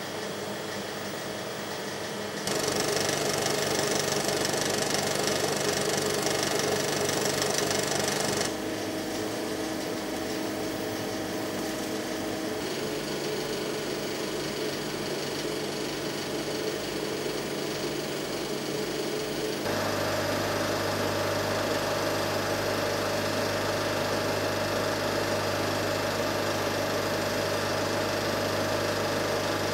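Film projector and film platter running: a steady mechanical whirr and clatter of the film transport with a hum under it. The sound changes abruptly about four times.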